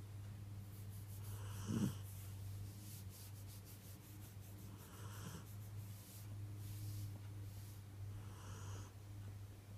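Snoring: slow breaths recurring about every three and a half seconds, three times, the loudest about two seconds in, over a steady low hum.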